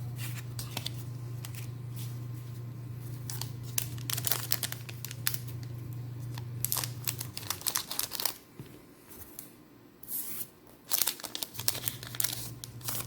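Foil trading-card booster pack being torn open and its wrapper crinkled, a run of sharp tearing and crackling sounds, over a steady low hum that drops out for a few seconds past the middle.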